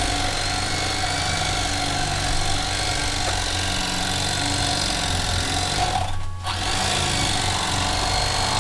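Electric carving knife running steadily as its blades saw through watermelon rind. The motor drops out for about half a second around six seconds in, then runs on.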